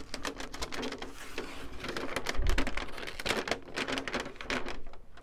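Plastic Monokote heat-shrink covering film crinkling and crackling in a dense run of sharp crackles as hands grip and turn the covered balsa wing, with a low thump about halfway through.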